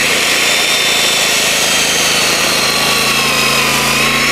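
1800 W dry core drill boring into the ground with a diamond core bit: its motor runs at a steady high whine, sagging slightly in pitch under load, over dense grinding noise. The DeWalt DXGNI35 3.5 kW inverter generator that powers it runs beneath, carrying the drill's load.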